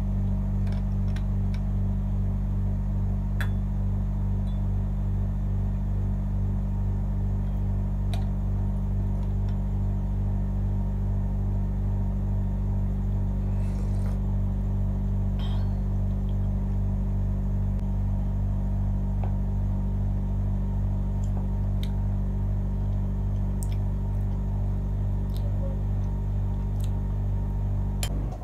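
A loud, unchanging low hum or drone that cuts in and cuts off abruptly, with a few faint light clicks and clinks over it.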